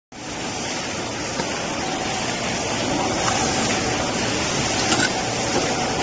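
Steady hiss and hum of a running injection moulding machine for USB cables, with a faint steady tone beneath and a light click about five seconds in.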